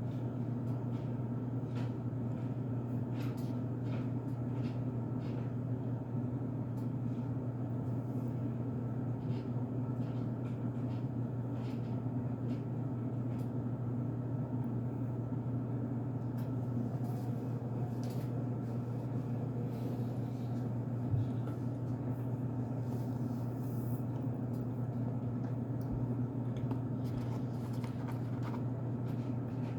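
Cornstarch being chewed: faint, irregular crunchy clicks over a steady low hum.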